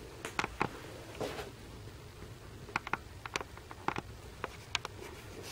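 Scattered light clicks and taps, some in quick pairs, with a brief rustle about a second in.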